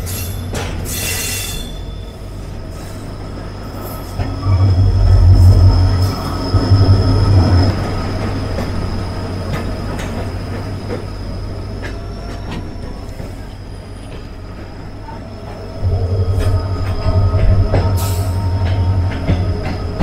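Indian Railways passenger coach running on the track, heard from an open doorway: a steady rumble of wheels on rail under a thin, steady wheel squeal as the train takes a curve. The low rumble grows louder in two spells, about four seconds in and again from about sixteen seconds.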